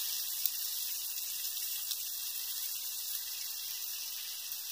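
Bacon frying in a pan over a campfire: a steady, even sizzle with a few faint pops.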